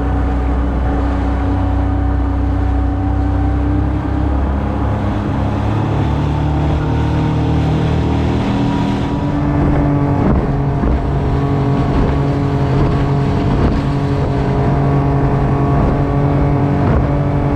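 Tohatsu outboard motor running steadily at trolling speed, its pitch stepping up a little a few seconds in.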